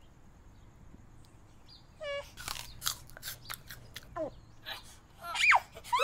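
Crunching and chewing of an apple being bitten into: about a second and a half of dense, crisp crunches a couple of seconds in. Short squeaky calls that glide in pitch come just before the crunching and again near the end.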